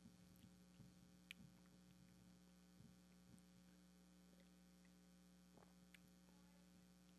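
Near silence: a steady low electrical hum, with a few faint clicks.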